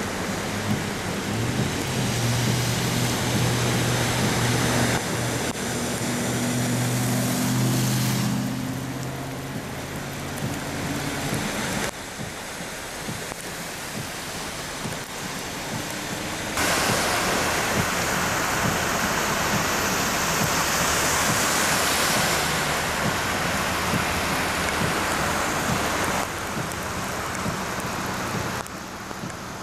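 Cars driving through deep standing floodwater in heavy rain, tyres throwing up sprays of water over a steady hiss of falling rain. A vehicle engine hums under the splashing for the first several seconds, and the sound changes abruptly several times, with the loudest, hissiest stretch of spray and rain in the second half.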